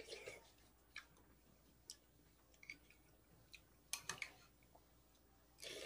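Faint, scattered clicks of a metal spoon against a bowl, with quiet chewing in between; a small cluster of clicks about four seconds in. Otherwise near silence.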